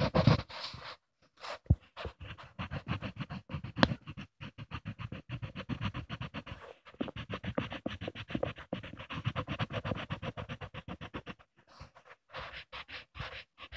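Rapid back-and-forth scribbling of a colouring tool on paper close to the phone's microphone, several strokes a second, pausing briefly about a second in and again near the end.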